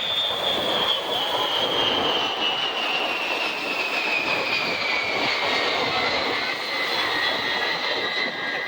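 B-52 bomber's eight turbofan engines flying past: a steady jet rush with a high whine that falls slowly in pitch as the bomber goes by.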